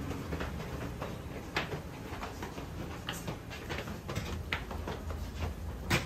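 Footsteps on a staircase: a series of irregular clicks and scuffs over a steady low hum of building background noise.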